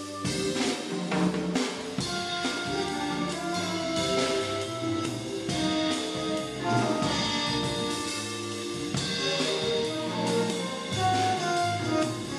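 Jazz sextet playing live: trumpet, trombone and flute sound sustained melody notes together over bass and drum kit.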